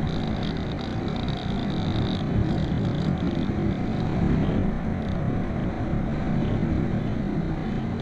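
Steady rush of air past a glider in flight, the airflow buffeting the microphone.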